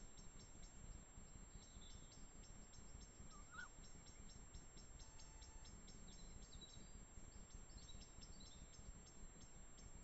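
Near silence of a night forest: faint, high ticking repeated several times a second, with a brief faint call about three and a half seconds in.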